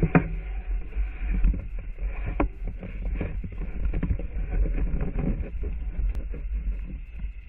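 Steady low rumble of a fishing boat at sea, with many irregular knocks and splashes as the crew line-fish snoek over the side.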